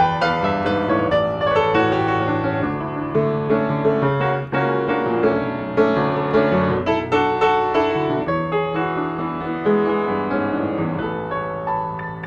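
Piano played solo in an instrumental passage between sung lines, with many quickly struck chords and notes and no singing.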